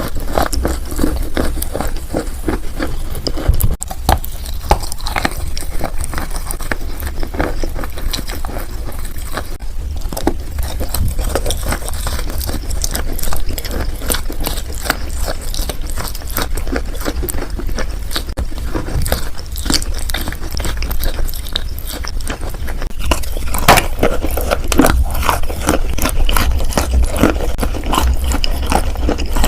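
Close-up biting and chewing of wet chalk: a dense, irregular run of crunching clicks and scrapes.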